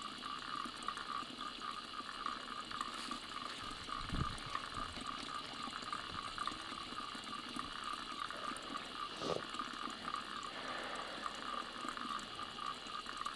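Water of a small mountain spring trickling and gurgling steadily at the very head of a stream. Two faint knocks sound about four and nine seconds in.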